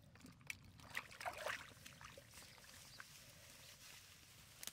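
Hands groping for fish in shallow muddy water: faint sloshing and small splashes, busiest about a second in.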